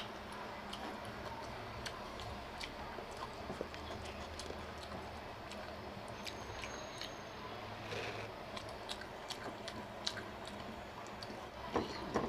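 A person chewing and eating food close to the microphone, with many small, irregular mouth clicks and occasional crunchy bites.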